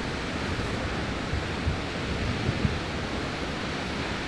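Steady rushing roar of a large waterfall's falling water.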